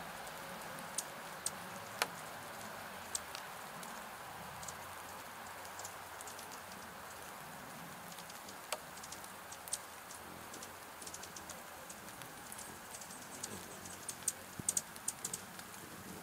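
Steady rain hiss with scattered sharp ticks of raindrops striking a homemade clear plastic rain shield over a hummingbird feeder; the ticks come more often near the end.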